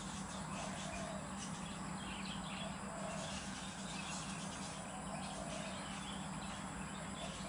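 Outdoor ambience of insects trilling and birds chirping, with short calls repeating every second or two, over a steady low hum.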